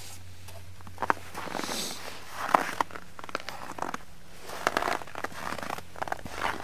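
Footsteps crunching on snow: a few uneven steps with small crunches and clicks, starting about a second in, over a faint steady low hum.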